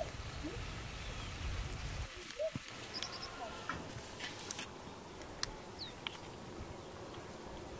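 Low steady rumble of a gas stove burner under a cooking pot, cut off abruptly about two seconds in. Then quiet ambience with scattered short bird chirps and a few sharp clicks.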